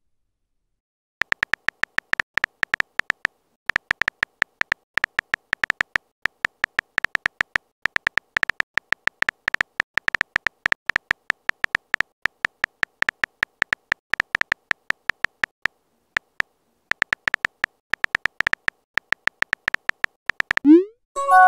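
Keyboard typing sound effect of a texting-story app: rapid short beeping clicks, several a second, in runs with brief pauses as a message is typed. Right at the end a quick rising swoop and a short chime as the message is sent.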